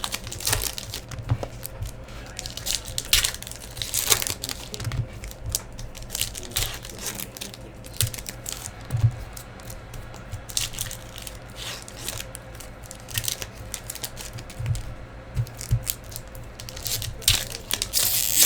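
Trading card packs being torn open and cards handled: wrappers crinkling and tearing, with an irregular string of short rustles and flicks, the loudest near the end.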